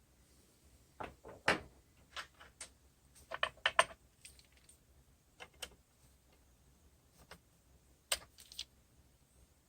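Irregular clicks and knocks of small hard parts and tools being handled, in three short clusters: near the start, in the middle and near the end.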